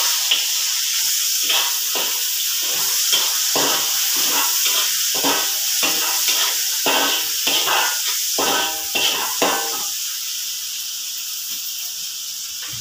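Vegetables sizzling in a hot steel wok, with a metal spatula repeatedly scraping and knocking against the wok as the food is stir-fried. The knocks stop after about ten seconds, leaving the sizzle alone.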